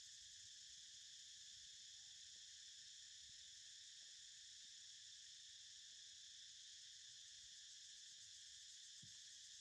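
Faint, steady chorus of insects, a high-pitched shrill hum.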